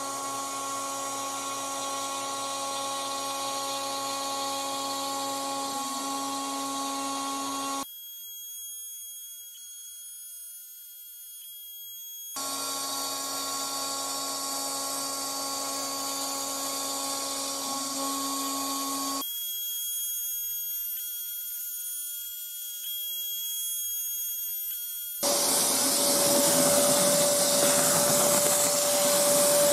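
DIY CNC router spindle with a 4 mm end mill running steadily while milling a pass in MDF, a stack of steady tones. Twice it drops to a thin high whine for several seconds. About 25 seconds in, a vacuum cleaner hose takes over, louder, an even rushing noise with one steady tone, sucking up the MDF chips.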